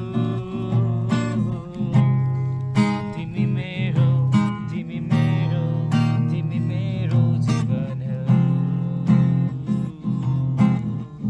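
Acoustic guitar strummed, playing a run of chords with repeated strokes.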